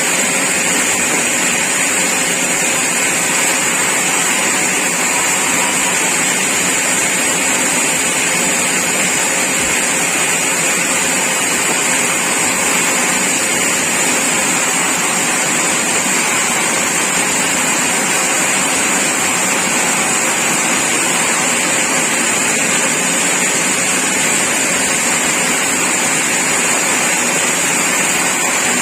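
Sawmill machinery running steadily: a loud, even mechanical din with a strong high hiss that does not change.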